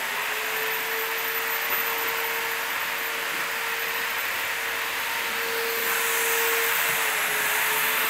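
Arge ceiling fan running: a steady electric-motor hum under an even rush of moving air.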